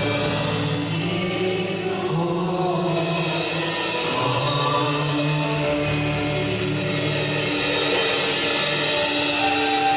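Live gospel worship music: a small group of singers on microphones singing long held notes over a sustained instrumental backing.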